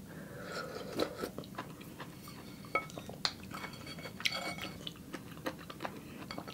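Close-up eating sounds: soup broth sipped from a ceramic bowl, then chewing, with scattered sharp clicks and a few short ringing clinks of a utensil against the bowl.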